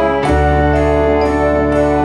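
Background music of sustained, organ-like keyboard chords, with a new chord and bass note coming in about a quarter second in.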